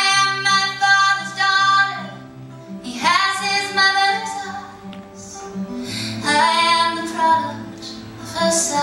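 A woman singing live to her own strummed acoustic guitar, in three long drawn-out phrases with sliding pitch over steady guitar chords.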